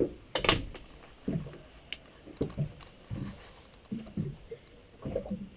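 Footsteps on a boat's cabin floor: a string of dull steps about every half second to second, after a sharp click about half a second in.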